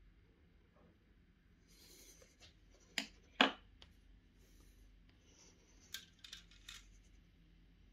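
Small hard parts handled on a tabletop: a brief rustle, then two sharp taps about three seconds in as the thermal paste syringe is set down, and a few lighter clicks near the end as the steel wire fan clips are picked up.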